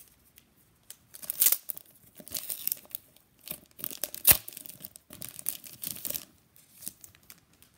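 Clear plastic wrapper around a two-pack of trading cards being torn open and crinkled by hand, in irregular rustling bursts with one sharp tearing snap about four seconds in.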